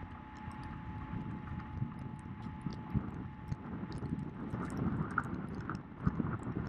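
A following motor launch running on the river: a steady motor whine under rumbling wind and water noise, with irregular knocks of water slapping the hull, the strongest about six seconds in.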